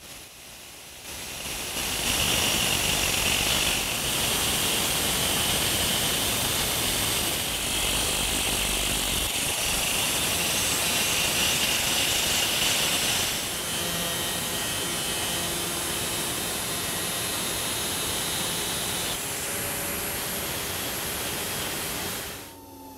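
4-inch angle grinder with a cutoff wheel cutting through a NetGain 11-inch electric motor's shaft as the battery-driven shaft turns, a steady high-pitched grind starting about a second in. After about 13 seconds it drops a little in level, lighter grinding over the cut end to knock down burrs on the splines, and it stops just before the end.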